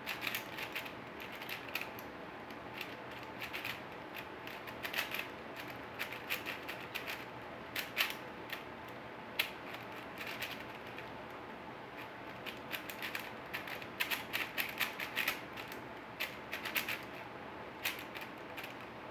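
Plastic 4x4 Rubik's cube being turned by hand: rapid clicking and clacking of its layers in irregular bursts with short pauses, and a few louder single clacks.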